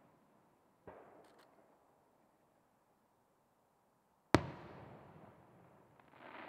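Aerial firework shells bursting. There is a smaller bang about a second in, then a much louder bang about four seconds in whose echoing rumble fades over about two seconds, and near the end a rushing noise with a few crackles.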